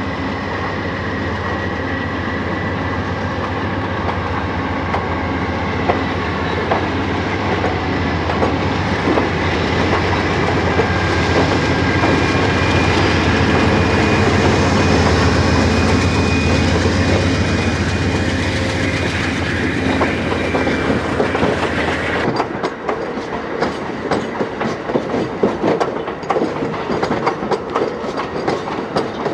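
Amtrak passenger train's diesel locomotives rolling past with a steady engine drone that swells and then fades. About 22 seconds in, the engine sound drops away, leaving the clickety-clack of the passenger cars' wheels over the rail joints.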